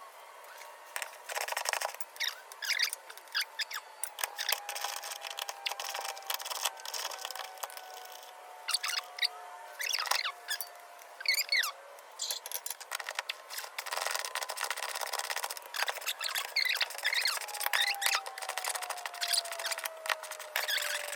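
Hand tools working loose the transmission bolts, which had been left to soak: repeated clicks and scrapes mixed with short high squeaks and chirping squeals. Twice a faint tone slowly falls in pitch.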